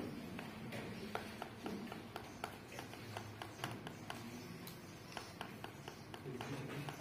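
Quiet handling sounds as hands tie a triangular bandage around a leg on a splint board: scattered light taps and clicks at an irregular pace, over a faint low murmur in the room.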